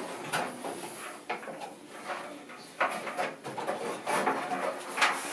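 Hands working a rubber drive belt around a clothes-dryer drum and pulleys: irregular knocks, clicks and rubbing as the drum and belt are handled.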